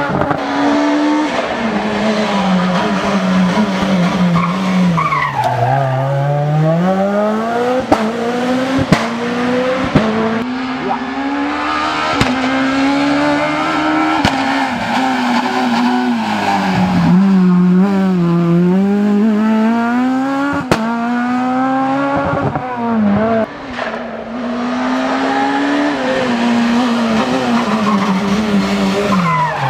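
Rally car engine at high revs, its pitch climbing and dropping sharply again and again as it changes gear and brakes for corners. Several sharp cracks are heard along the way.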